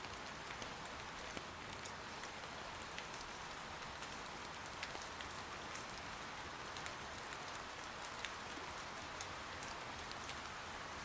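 Steady, soft rain patter, an even hiss with many small sharp ticks scattered through it.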